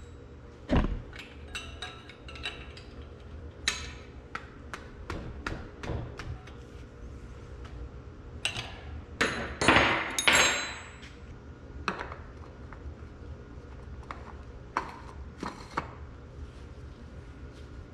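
Metal hand tools clinking and knocking against a cast-iron tractor transmission case and workbench, from wrench work on a lube line fitting. There is a heavy clunk about a second in and a longer scraping clatter around the middle, over a steady low hum.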